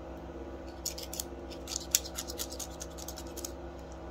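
Old gasket being scraped off the gasket face of a Tillotson chainsaw carburetor with a small hand scraper: a run of short, quick scratching strokes starting about a second in and stopping near the end, with one sharper scrape about two seconds in.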